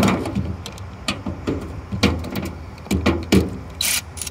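Ratchet wrench with a 5/16 socket clicking in irregular spurts as a fitting is tightened, with a louder rasping spurt near the end.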